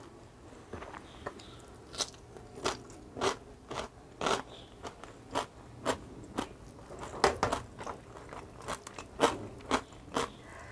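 A person chewing crunchy food close to a clip-on microphone. There are sharp crunches about twice a second, starting about a second in.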